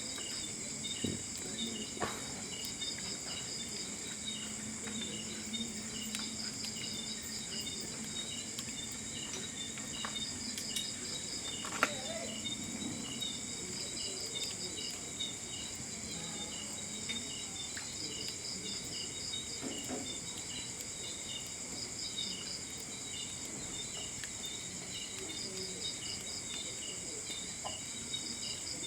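Steady chorus of insects, crickets among them, trilling in high pulsing calls, with a few faint clicks, the clearest about twelve seconds in.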